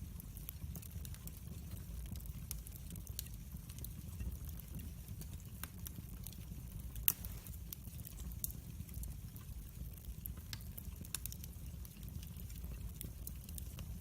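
Log fire burning in a fireplace, crackling with frequent small irregular pops and one louder crack about halfway through, over a low steady rumble.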